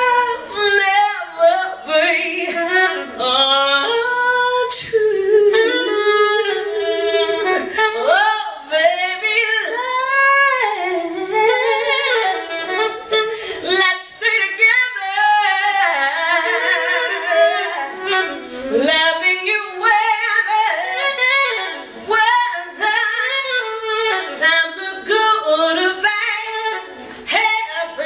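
A woman's voice and a saxophone performing live together, no words, with sliding, ornamented vocal runs and sax phrases weaving around each other. No bass or drums under them.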